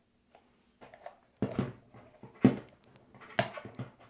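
A silicone sleeve being pried loose from its double-sided tape and pulled off a portable projector's body: a few short scrapes and knocks of handling, the loudest about two and a half seconds in.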